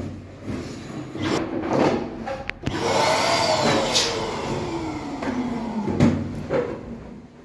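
Latex balloons rubbing and squeaking against each other as they are pushed into a balloon arch, with a long squeal falling in pitch from about three to six seconds in, amid knocks and rustling of handling.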